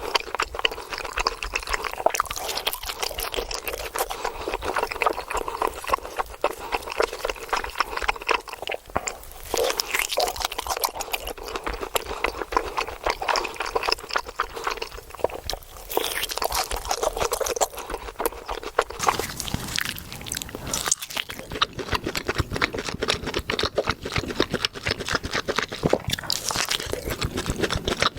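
Steak crackling and crunching, with wet, liquid sounds mixed in: a dense run of small crackles. About two-thirds of the way through the sound grows fuller and deeper.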